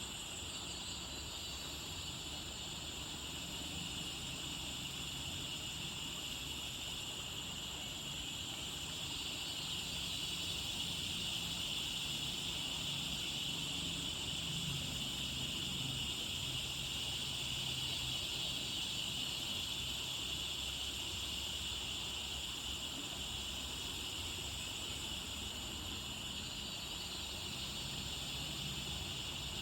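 Steady forest ambience: a river flowing, under an even high chorus of insects such as crickets or cicadas.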